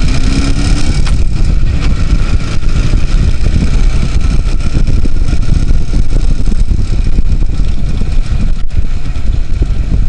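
Two-stroke engine of a Soviet IZh motorcycle running steadily while riding, heard from a bike-mounted microphone, with heavy low wind rumble on the microphone.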